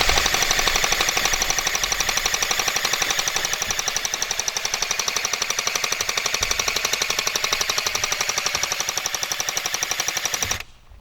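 Electric airsoft gun firing a long full-auto string, a steady rapid rattle that stops abruptly near the end and starts again a moment later.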